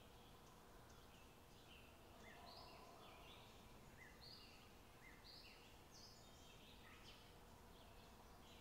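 Near silence with very faint, short swishes about once a second from a wooden spoon stirring milk in a pan.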